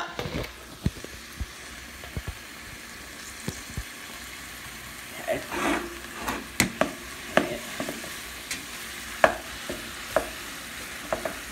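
Broccoli with olive oil and garlic sizzling steadily in a pot, with a spoon clicking and knocking against the pot as it is stirred, mostly in the second half.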